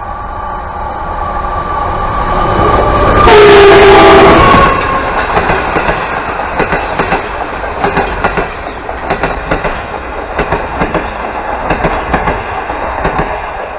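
The Overland passenger train passing close by: the diesel-hauled train approaches with a rumble that grows louder, the locomotive sounds its horn once about three seconds in for about a second and a half, then the carriages roll past with rapid wheel clicks over the rail joints.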